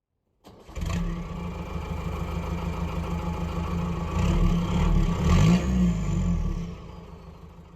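A car engine running, its pitch rising and falling briefly about five seconds in, then fading away near the end.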